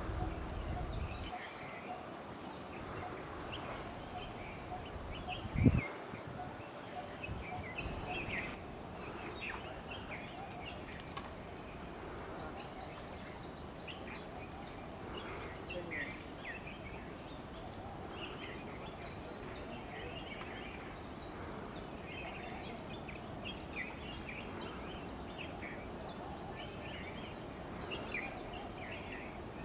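Assorted small birds chirping, with a few rapid high trills, over a steady outdoor background. A sharp low thump about six seconds in is the loudest sound.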